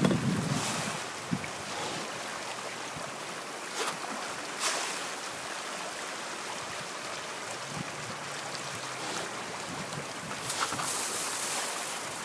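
Water splashing at the surface of a tilapia pond: a steady wash with a few sharper splashes, about 4 s in and again near the end, mixed with wind on the microphone.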